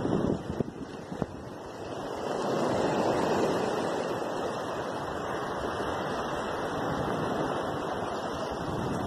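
Wind buffeting the phone's microphone over the rush of sea waves: a steady rushing noise that swells about two to three seconds in.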